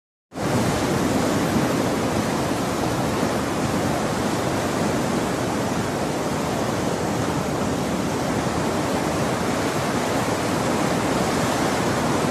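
Ocean surf breaking: a steady rushing hiss that starts abruptly a moment in and holds at an even level.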